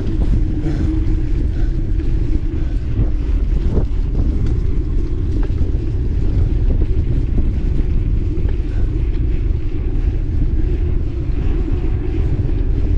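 Steady wind rushing over the microphone of a camera riding along on a mountain bike at speed, over a low rumble of the tyres rolling.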